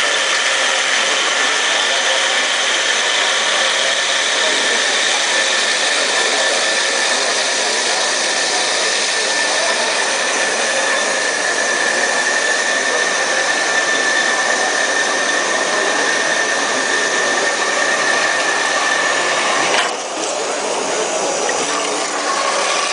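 Dual-column band saw blade cutting through a bundle of three thick-walled seamless tubes: a steady sawing noise with a high whine held throughout. The sound changes and drops slightly about twenty seconds in.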